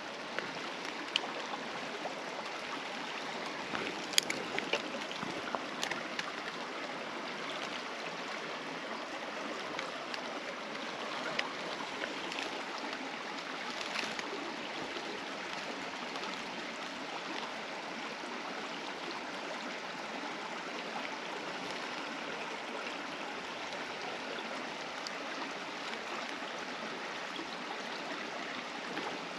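Shallow mountain creek running over rocks, a steady rush of flowing water. A few short clicks and knocks, mostly in the first half.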